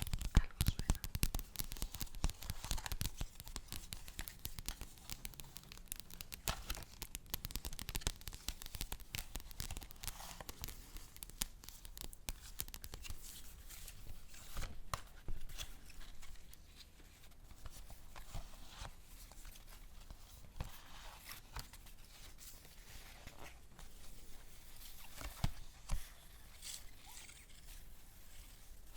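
Paper handled close to the microphone: crinkling and tearing, a dense run of crackles at first that thins out to scattered rustles and snaps.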